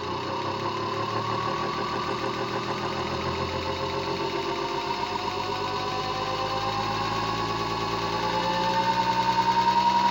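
Brushless hoverboard hub motor rig speeding up from idle: a steady electric whine and hum whose tones slowly rise in pitch. About eight seconds in it grows louder with a fast pulsing beat.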